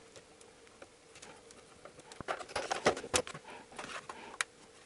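Small Phillips screwdriver backing out the tiny screws from the plastic case of a UT33C multimeter: scattered light clicks and scrapes as the meter is handled, most of them in the second half.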